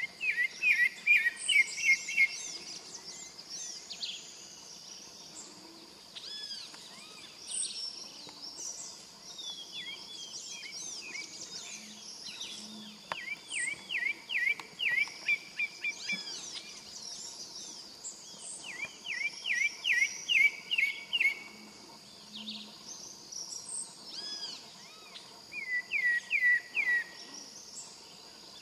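Pale-breasted thrush singing: phrases of varied clear whistles with short pauses between them. Four times, a phrase ends in a quick run of six to eight repeated downslurred notes, and these are the loudest parts.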